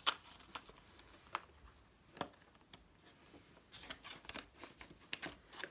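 Banknotes rustling and crinkling as a stack of cash is handled and straightened over a binder's cash envelope, with several sharp, brief crisp snaps among the faint rustle.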